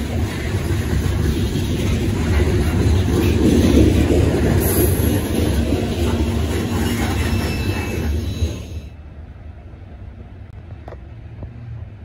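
Train rolling past: a steady rumble of wheels and cars on the rails, which cuts off abruptly about nine seconds in, leaving only quiet with a few light clicks.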